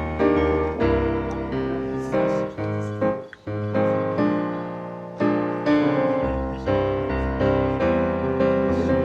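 Background piano music, a run of struck notes that ring and fade, with a short break about three seconds in.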